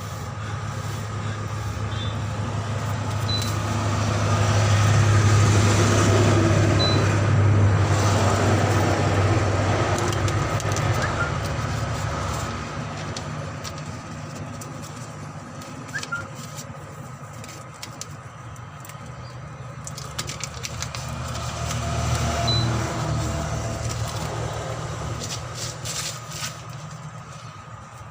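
Heavy road vehicles passing close by: a low engine drone swells and fades twice, with a few light clicks and knocks.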